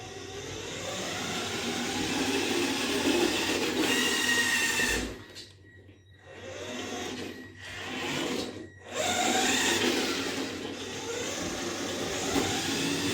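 Electric drive motor and gears of a toy radio-controlled Mini Cooper S running with a whine and a rattle, building up at first and stopping briefly twice around the middle before running again. The rattle is the fault under test, not cured by the new steering linkage.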